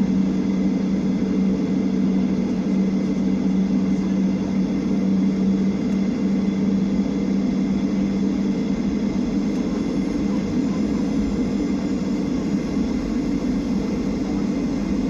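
A steady engine drone with a constant low hum, which fades somewhat about halfway through while the broad running noise continues.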